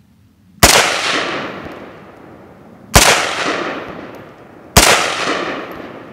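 Three single shots from an AK-47-pattern rifle, spaced about two seconds apart, each followed by a long echo that fades over a second or more.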